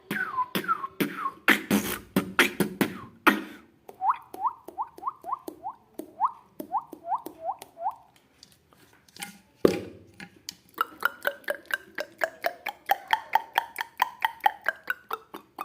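Beatboxer making water-drop sounds with the mouth: quick plops that each sweep up in pitch, a few a second, mixed with sharp clicks and beats. After a short pause a little past the middle comes a fast run of clicks, with the drop sounds climbing and then falling in pitch.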